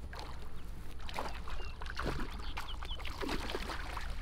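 A hooked bass splashing at the water's surface in irregular bursts as it is reeled in toward the bank, over a steady low rumble, with a few faint high chirps in the middle.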